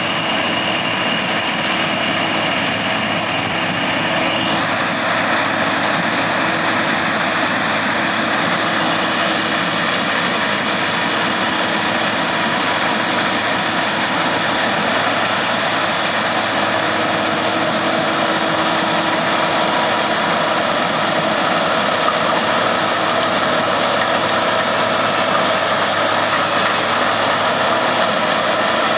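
Massey Ferguson 9895 combine running steadily while harvesting corn: a constant engine and machinery drone with several steady tones. A high whine drops out about four seconds in.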